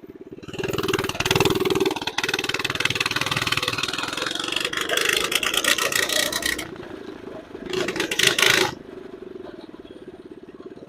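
Mini bike's small single-cylinder engine, fitted with a new upgraded carburetor, is revved hard for about six seconds, drops back to idle, is revved again briefly near eight seconds, and then settles back to a steady idle.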